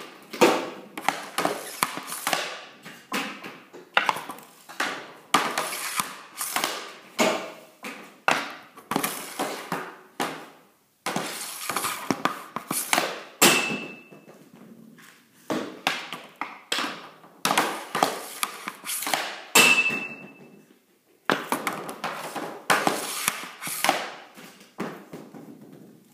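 Hockey shots in quick succession, roughly one a second: the blade of an Easton Synergy EQ50 stick cracking pucks off a plastic shooting board and the pucks slamming into the net and the walls, echoing in a small room. Twice, about halfway through and again some six seconds later, a short high metallic ring stands out.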